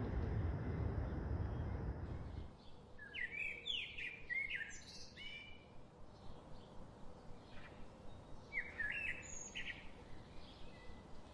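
Songbirds singing in short phrases of quick sweeping notes, repeated every few seconds. A low rushing noise cuts off abruptly about two and a half seconds in, before the song starts.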